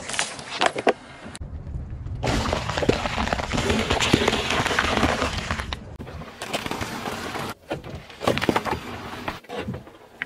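A car tyre rolling over and crushing objects on asphalt: sharp cracks and snaps at the start, a long spell of crunching and crackling of about four seconds in the middle, then shorter bouts of cracking.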